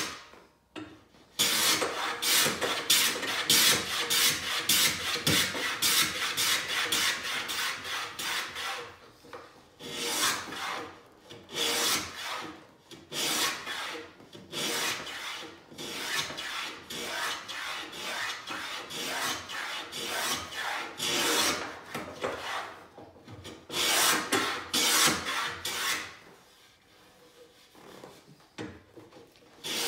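A No. 4 skew hollow moulding plane with a wooden body cutting a small round-over on the end grain of a drawer front. It goes in quick, repeated short rasping strokes, with brief pauses about a second in and about nine seconds in, and a quieter stretch near the end.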